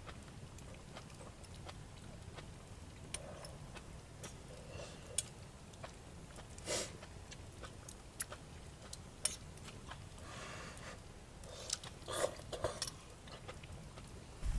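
Faint scattered clicks and a few short rustling or clinking sounds over a low steady rumble.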